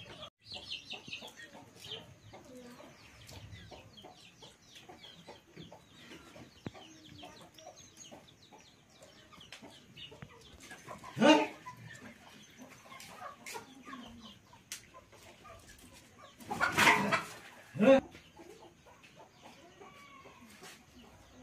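Chicken clucking steadily in short calls, with one loud call about halfway through and two more a few seconds later.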